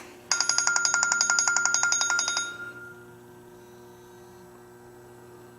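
Electronic ringtone, a fast trilling ring lasting about two seconds before it stops, leaving a faint steady hum.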